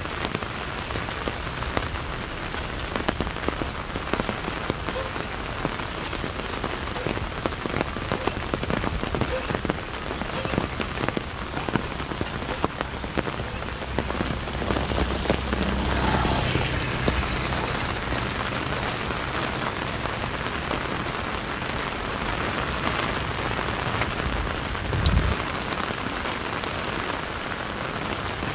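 Steady rain falling, with many separate drops heard striking surfaces. A low rumble swells about halfway through, and there is a brief low thump near the end.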